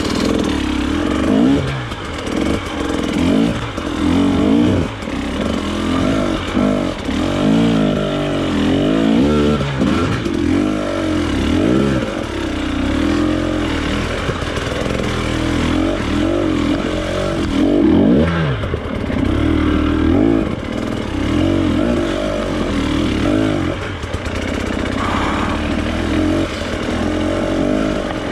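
Off-road trail motorcycle engine revving up and down over and over as it is ridden along a rough lane, its pitch rising and falling every second or two.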